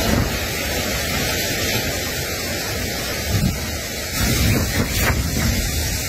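A steady, even hiss with no distinct bird calls standing out.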